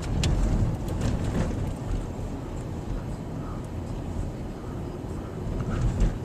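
Car cabin road noise: the car runs over a rough, bumpy road with a steady low rumble. Louder jolts come in the first second and again near the end.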